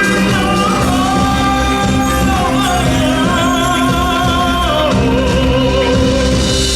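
Musical-theatre song: a singer holding long, sustained notes over full orchestral accompaniment, moving to a new note a few times.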